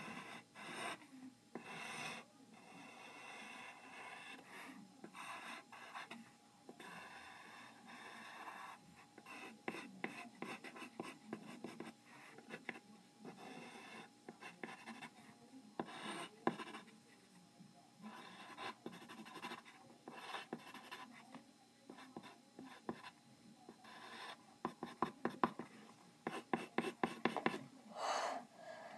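Pencil scratching on paper in quick, irregular short strokes as a drawing is sketched, with brief pauses between bursts and a busier run of strokes near the end.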